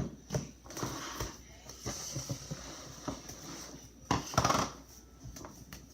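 Slime being handled and squished: a run of short clicks and squelching bursts, loudest about four seconds in.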